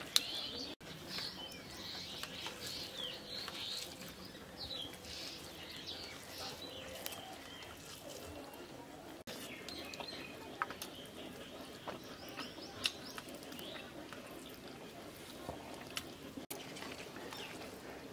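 Small birds chirping repeatedly, busiest in the first few seconds, with occasional sharp clicks.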